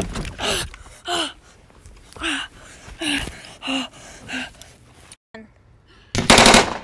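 A person gasping and panting in short voiced breaths, falling in pitch, about one a second. Near the end comes a brief, loud, rapid crackling burst.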